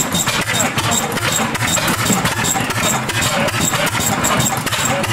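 Several antique stationary flywheel gas engines running together: a steady, uneven chugging and clattering of overlapping firing strokes.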